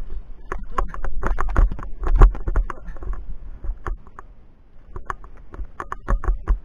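Via ferrata lanyard carabiners clinking and scraping along the steel safety cable as the climber moves. A quick run of sharp clicks and knocks eases off briefly past the middle, then starts again near the end.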